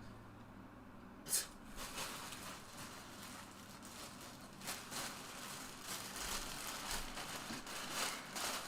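Rustling and handling noise, with a sharp knock about a second and a half in and several smaller knocks and rustles after it.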